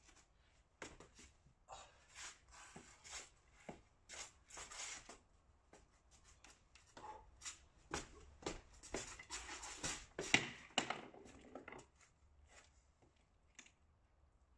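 Faint, irregular taps and scuffs of a ball being kept up with the feet and knees, about two touches a second, with shoes scuffing on the paving.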